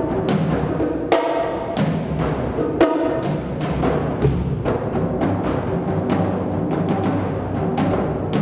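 Solo multi-percussion playing on a large concert bass drum and toms: irregular strokes, several a second, over a constant low drum rumble. Two heavier strokes, about one second and three seconds in, ring on with a pitched tone.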